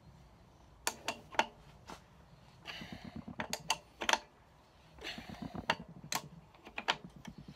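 Scattered, irregular metallic clicks and ticks of wrenches working the nut of an ATI damper installer tool, pressing a harmonic damper onto the crankshaft snout.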